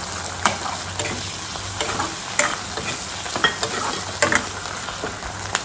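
Potatoes with onion and mustard seeds sizzling in plenty of hot oil in a kadai, while a metal ladle stirs them and scrapes and clinks against the pan about once a second.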